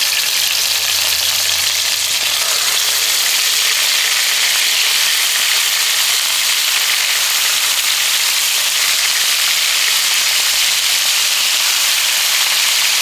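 Pieces of marinated iguana meat sizzling steadily in hot oil in a frying pan.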